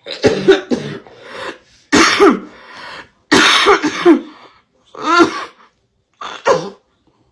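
A woman coughing uncontrollably after inhaling a dab of cannabis concentrate: about five hard fits of rapid coughs with short gaps between them, the longest fits about two and three seconds in.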